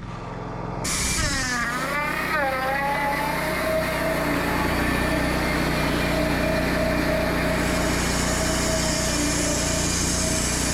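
Wood-Mizer LT40 Wide band sawmill running and cutting through a pecan log, a steady mechanical whine with a noisy hiss of the blade in the wood. About a second in, the pitch dips and then climbs back over a couple of seconds before settling into a steady run.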